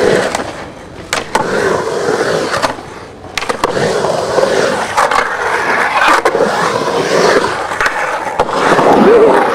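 Skateboard wheels rolling and carving across a concrete bowl, a continuous rush of wheel noise broken by several sharp clacks of the board and trucks.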